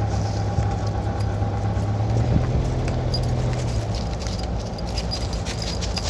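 A car rolling slowly, its engine and tyres making a steady low hum that eases off about four seconds in, with faint scattered ticks over it.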